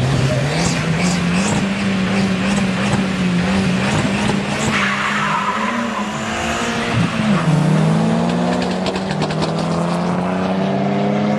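Two drag racing cars launching from the start line and accelerating hard down the strip, engines at full throttle. The engine pitch climbs at the launch, steps up about a second in, and drops then climbs again around seven seconds in at a gear change.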